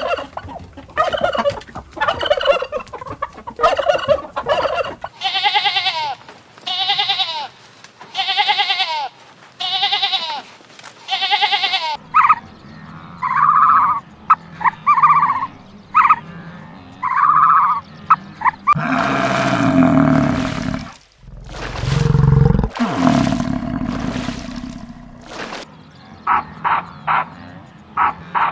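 Turkey gobbling, then a run of other animal calls in short repeated series. The kind of call changes abruptly several times, at about 5, 12, 19 and 25 seconds in.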